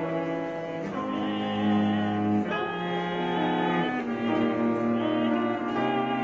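Classical chamber music for soprano, clarinet, cello and piano: long held notes, the singing voice wavering with vibrato over the cello's lower line.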